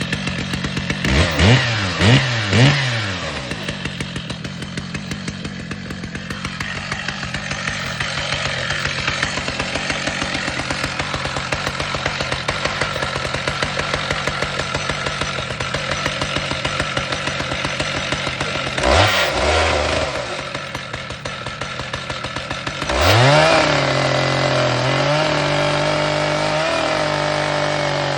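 Chainsaw in an Alaskan chainsaw mill idling, its throttle blipped three times about a second in and once more later, then opened up near the end and held at a steady high speed.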